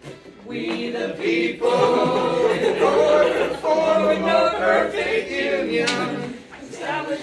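A group of voices singing together in chorus, coming in about half a second in and growing louder, then dipping briefly near the end.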